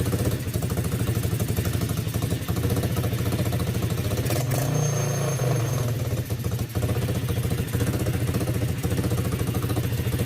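Coolster ATV's small single-cylinder engine running steadily on its newly replaced carburetor, with a brief rise in engine speed about halfway through.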